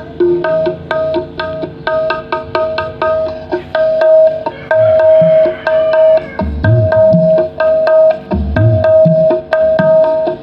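Music with a steady hand-drum rhythm and a repeating plucked melody. Low drum strokes that slide in pitch come in about halfway through.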